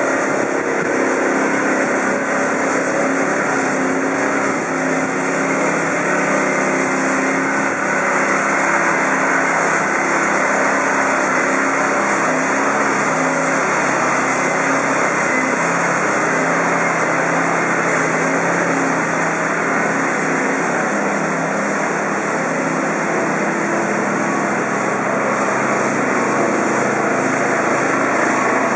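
Siemens Desiro diesel railcar's engine running with a steady, even hum.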